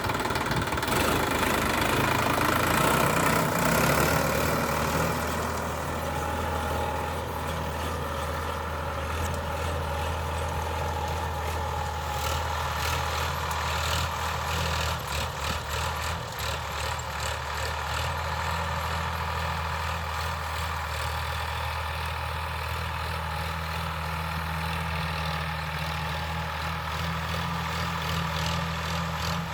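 Sonalika DI 745 III tractor's diesel engine running steadily while ploughing. It is louder and harsher for the first few seconds, then settles into a steady drone, with some rattling about halfway through.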